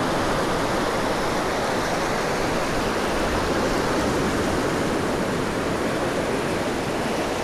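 Ocean surf breaking and washing up a sandy beach: a steady, unbroken rush.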